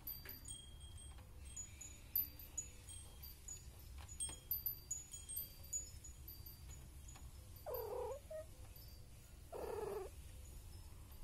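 A cat meowing twice near the end: two short calls about two seconds apart, the first falling in pitch. Under them are a few soft clicks and faint, scattered high chime-like tones.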